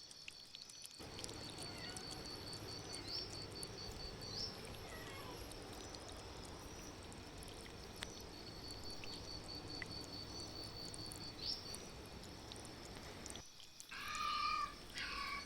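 Steady monsoon rain with an insect chirping in a fast, even pulse. Near the end, a stray cat meows loudly a few times.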